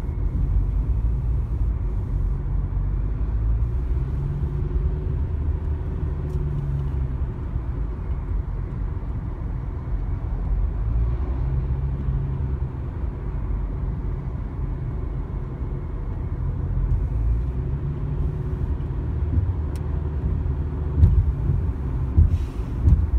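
Road noise inside a moving car's cabin: a steady low rumble of tyres and engine, the engine hum shifting up and down in pitch, with a few louder thumps near the end.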